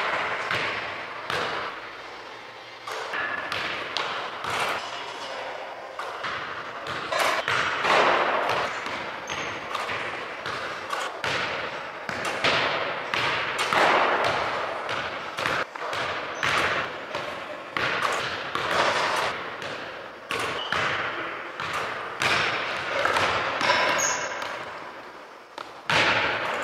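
Basketball bouncing on a hardwood gym floor in a string of irregular thuds, with shots striking the backboard and rim. Each impact echoes around the large empty gym.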